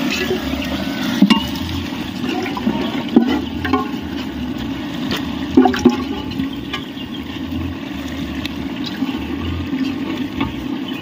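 Raw chicken pieces and their watery juices being poured and splashed from an aluminium pot into a large pot of biryani masala, with a steady sound of pouring liquid. A few knocks of the metal pot rims come along the way.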